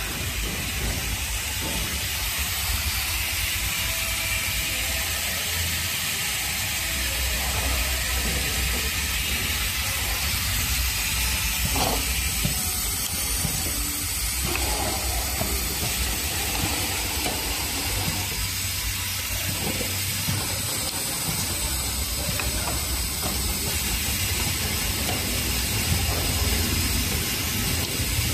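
Automatic cup labeling machine running: a steady mechanical hiss over a low hum, with a couple of faint clicks about halfway through.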